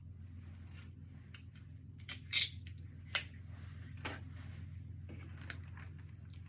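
A few short rustles and taps from items being handled and set in place, the loudest a brief crinkly rustle about two and a half seconds in, over a steady low hum.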